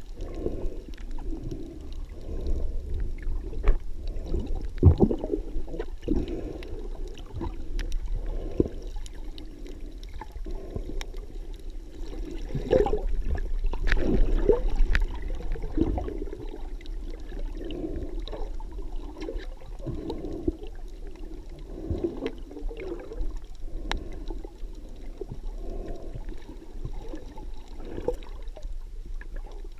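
Muffled underwater water noise heard through an action camera's housing: uneven sloshing and gurgling as a snorkeler moves in shallow water, with scattered small clicks and knocks. It swells louder for a few seconds around the middle.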